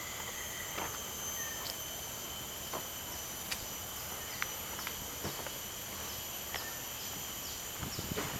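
A steady, high-pitched chorus of insects in several held tones, with footsteps on a paved path about once a second. In the second half a quick run of short falling chirps repeats about twice a second.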